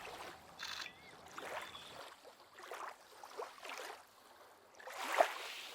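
Soft, irregular splashing and lapping of water in repeated small swishes, as of ducks paddling and dabbling at the surface. A short, sharp note about five seconds in is the loudest moment.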